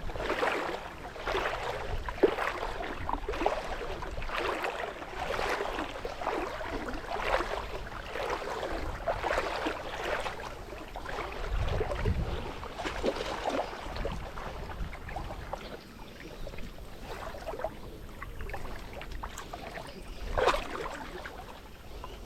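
River water lapping and splashing in small irregular surges about once a second. Low rumbles of wind on the microphone come in twice.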